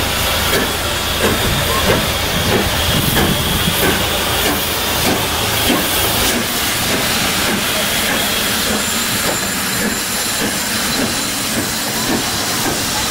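GWR King class steam locomotive 6023 King Edward II passing slowly with its train, steam hissing, then its coaches rolling by with the wheels clicking over the rails.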